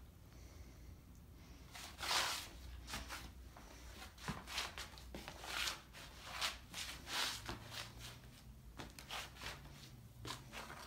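Footsteps scuffing and shuffling on a hardwood floor, with soft rustles, coming irregularly every half second or so; the loudest scuff is about two seconds in.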